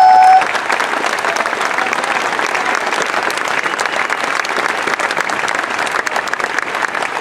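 Audience applauding steadily, a dense sustained clapping. A loud held high tone cuts off about half a second in, just as the applause takes over.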